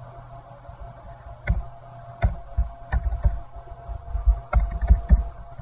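Typing on a computer keyboard: irregular keystroke clicks that start about one and a half seconds in, over a faint steady hum.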